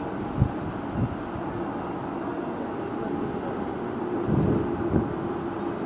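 Queensland Rail NGR electric multiple unit approaching slowly along the station platform with a steady hum. A few low thumps come about half a second and a second in, and again around four to five seconds in.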